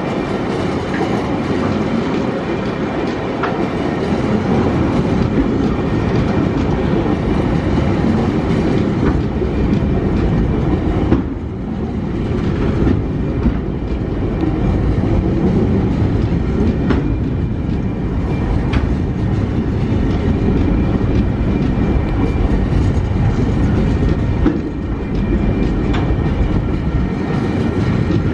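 Container flat wagons of a Tasrail freight train rolling past: a steady, loud rumble of steel wheels with irregular clickety-clack over the rail joints, easing briefly twice.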